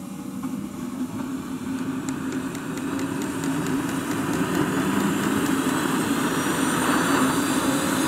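JetCat P200SX model jet turbine starting and spooling up, its rushing noise building steadily louder with a thin rising whine. A run of faint ticks comes about two seconds in.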